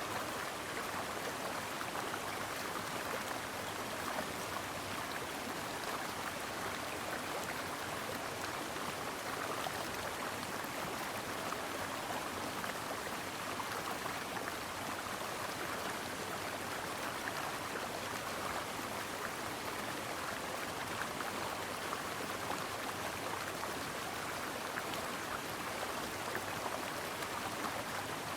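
Stream water flowing and babbling over rocks, a steady rushing wash with fine splashing.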